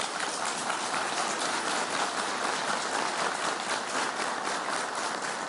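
A large seated audience applauding, a dense, steady clatter of many hands that dies away near the end.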